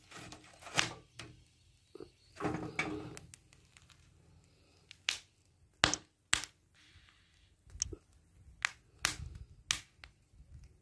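Roasted corn on the cob being bitten and chewed: sharp, crisp crunches of charred kernels every half second to a second, with a softer rustling crunch about two seconds in.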